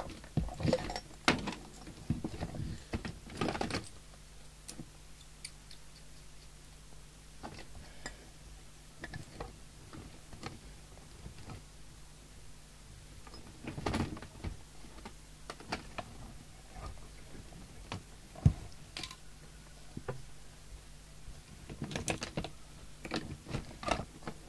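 Scattered clicks, knocks and rattles of leads, plugs and connectors being handled and fitted to a CB radio on a bench, in small clusters with one sharp click past the middle, over a faint steady hum.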